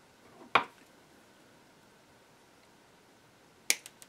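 Small tools or parts being handled at a workbench: one sharp click about half a second in, and another sharp click with a quick lighter one after it near the end.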